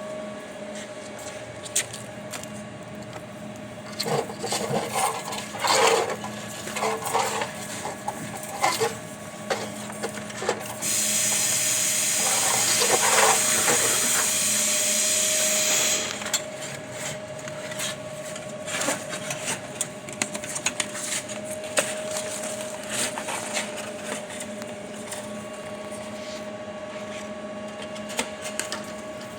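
Scrap baling press running during bale tying: a steady machine hum with irregular clanks and rattles, and a loud hiss lasting about five seconds midway.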